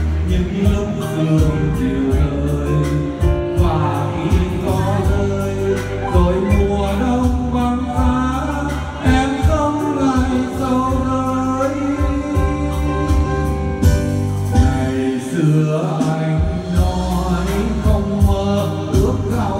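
A man singing a Vietnamese song into a microphone, with instrumental backing music.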